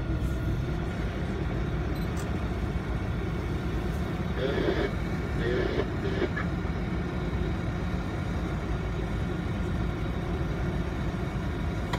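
Steady low rumble of a canal tour boat's engine, heard on board while cruising. Brief faint voices come through about four and a half and six seconds in.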